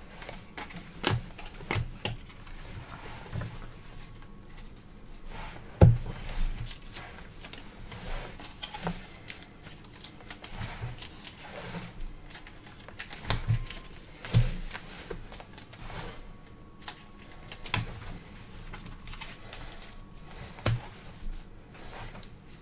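Trading cards being handled and flipped through one at a time, making irregular light clicks and taps as cards slide over each other and are set down on the table. The loudest tap comes about six seconds in.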